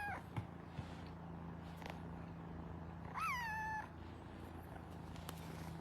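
A cat meowing once about three seconds in, a call that rises and then falls and holds briefly, with the end of another meow at the very start. A faint low hum runs underneath.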